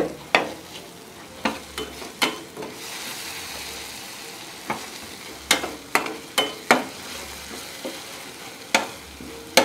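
A metal spatula scraping and knocking against a stainless steel frying pan in irregular strokes, stirring sliced green chilies into a spice paste that sizzles in oil over low heat.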